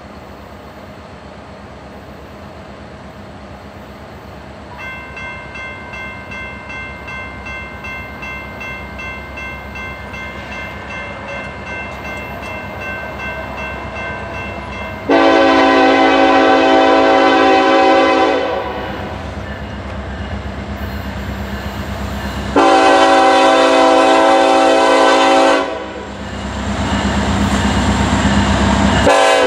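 A freight locomotive's horn sounds for the grade crossing: two long blasts starting about halfway through, and a third beginning at the very end. Under it, the crossing's General Signals type-2 electronic bell starts ringing about five seconds in as the signal activates. An approaching train's low rumble grows louder toward the end.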